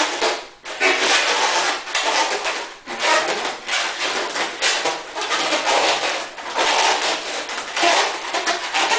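A long latex modelling balloon rubbing and squeaking against itself and the hands as it is twisted and wrapped, in repeated spells of about a second each.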